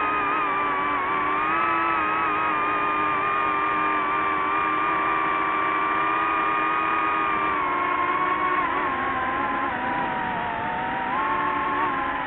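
DJI FPV drone's motors and propellers whining steadily in flight. The pitch wavers with the throttle, dips about eight seconds in and climbs again near the end.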